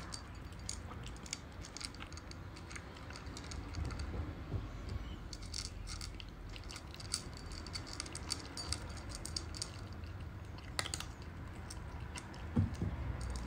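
Cat eating dry kibble from a stainless steel bowl: irregular crisp crunching, with one louder knock near the end.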